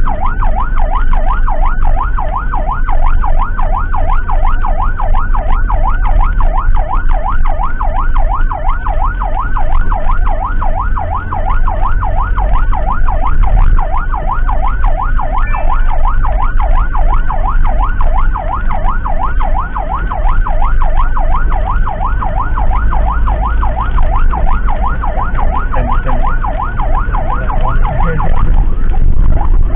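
Electronic emergency siren on a fast yelp, its pitch sweeping up and down several times a second without a break, over the low rumble of a vehicle on the road.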